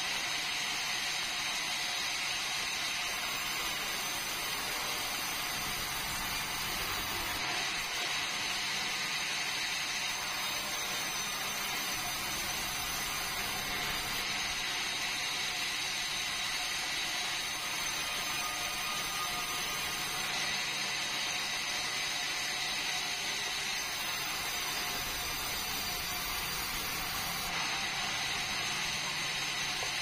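Sawmill band saw running steadily as boards of red meranti are fed through the blade.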